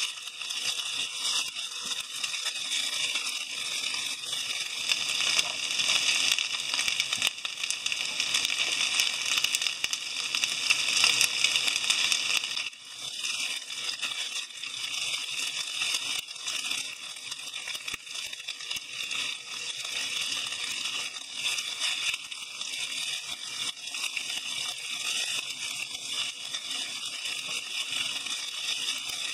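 Chicken thigh pieces and vegetables sizzling and crackling in oil in a frying pan. The sizzle is loudest in the first half, drops suddenly a little under halfway through, then goes on somewhat quieter.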